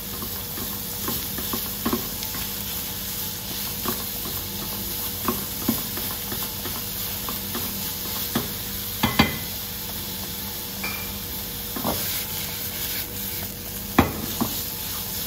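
Minced beef frying in extra-virgin olive oil with a soffritto of carrot, onion and celery in a nonstick pan, sizzling steadily. A spoon stirs it and knocks against the pan now and then, loudest a little past halfway and near the end.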